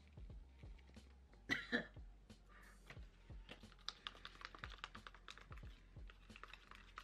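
Small plastic spatula clicking and scraping against a plastic cup as a rubber face mask's liquid and powder are stirred into a paste: a quick run of light clicks from about halfway through. A brief vocal noise about one and a half seconds in.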